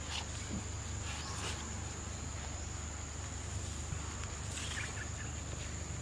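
Insect trilling as one steady high-pitched tone over a low steady hum, with a few faint rustles and a brief faint chirp about five seconds in.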